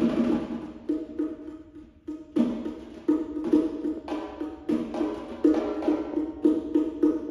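Bongos and a snare drum played with bare hands: an irregular run of sharp, woody strikes, with a brief lull about two seconds in.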